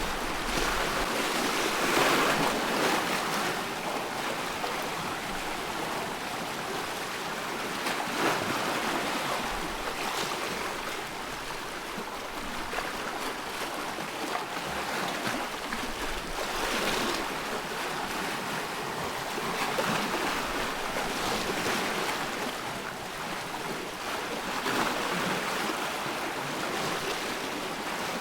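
Small waves on a loch lapping and splashing, with wind, the wash swelling every few seconds.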